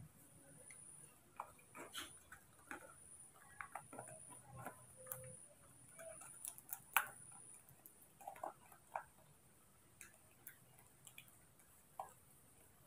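Faint, irregular small clicks and crinkles of a young monkey handling and biting a small paper packet, thickest in the middle and thinning out toward the end.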